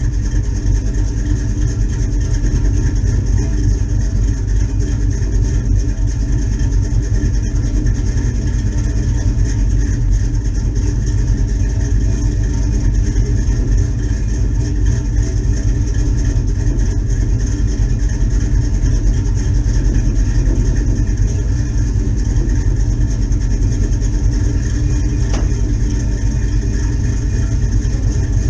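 1984 Chevrolet Silverado pickup's engine idling steadily.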